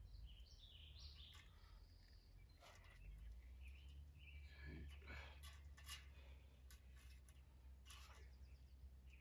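Faint outdoor quiet with small birds chirping now and then, most in the first couple of seconds, and scattered light clicks from fence wire and a crimp sleeve being handled.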